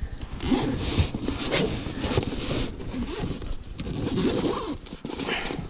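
Zipper being pulled open around the lid of a collapsible fabric fish bucket, with irregular rustling and scraping as the bag is handled.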